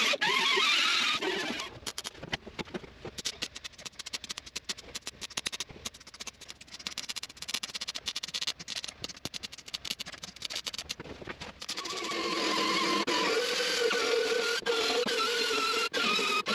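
An angle grinder with a flap disc whines against sheet steel for about the first second and a half. It gives way to the dense, irregular crackle of a MIG welder welding the floor and transmission-tunnel sheet metal for about ten seconds. A loud, steady, wavering tone takes over for the last four seconds or so.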